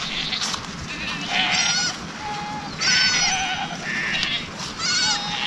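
A flock of sheep bleating, several animals calling one after another and over each other in wavering, quavering bleats at different pitches.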